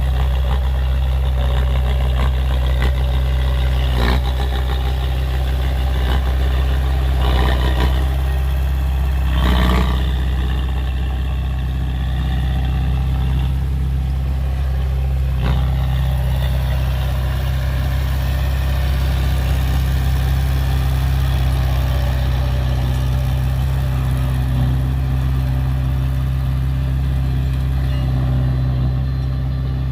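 Heavy diesel engine of earth-moving machinery running steadily at a low, even pitch, with a few clanks about 4, 8, 9 and 15 seconds in.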